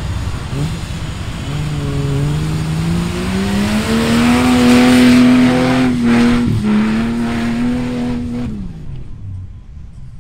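An off-road vehicle's engine revving up, its pitch climbing over a couple of seconds and then holding, with a loud rushing hiss over it. The pitch dips sharply for a moment about six and a half seconds in, then the engine drops off and fades near the end.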